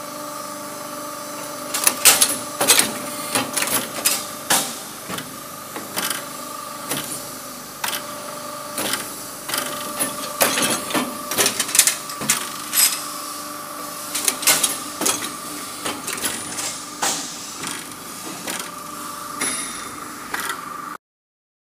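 Automatic chain-link forming machine running with a steady whining hum, broken by repeated sharp metallic clanks, irregular at about one or two a second, as it bends the steel links and the chain rattles. The sound cuts off suddenly near the end.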